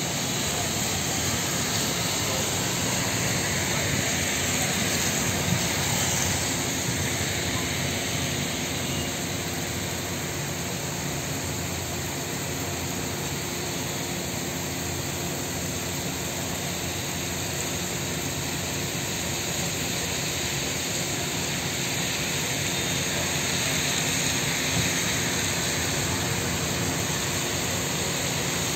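Heavy monsoon rain pouring steadily onto a street and trees, an even hiss that swells and eases slightly, mixed with tyres swishing as vehicles pass on the flooded road.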